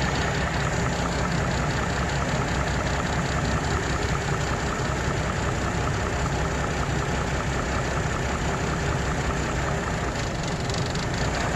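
2005 GMC Envoy's 4.2-litre inline-six idling steadily with an even pulse, with a misfire on cylinder 3 that points to a bad ignition coil.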